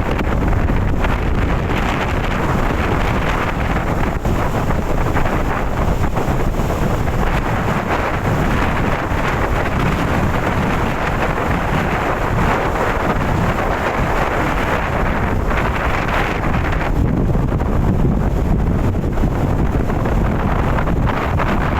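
Strong wind buffeting the microphone in a steady, heavy rumble, with rough sea surf beneath it.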